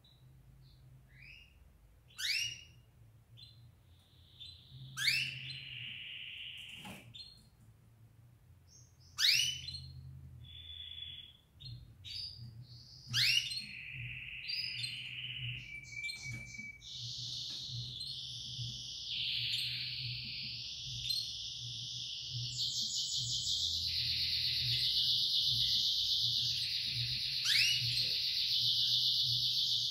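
Canary singing: sharp rising whistled notes mixed with short trills, building about halfway through into a long, continuous rolling trill that grows louder toward the end.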